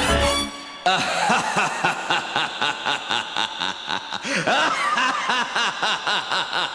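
The music cuts off about half a second in. A long, theatrical horror-movie laugh follows, a rapid, unbroken string of 'ha' pulses that keeps going throughout.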